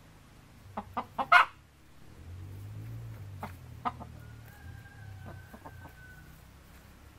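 Hens clucking in short, sharp calls, a quick run of them about a second in being the loudest, with a few softer clucks later on.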